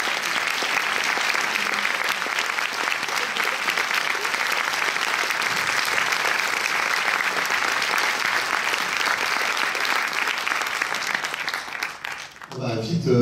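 A large audience applauding, a dense, steady clatter of many hands clapping that dies away about twelve seconds in.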